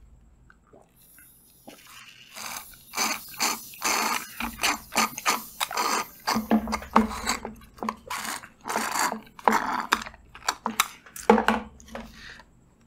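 Slurping and sucking through straws from small Maaza mango-drink tetra-pack cartons, with the cardboard packs crinkling as they are squeezed and handled. It is a rapid, irregular run of short wet and crackly sounds, starting about two seconds in.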